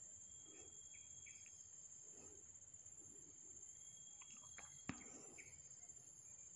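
Faint, steady high-pitched insect drone, with a few short chirps and one sharp click about five seconds in.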